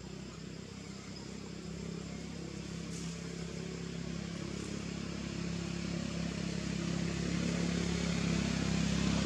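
A motor vehicle's engine running steadily and growing gradually louder as it approaches.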